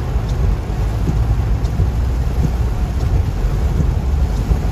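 Floodwater rushing steadily through a flooded street, with wind buffeting the microphone, heavy in the low end.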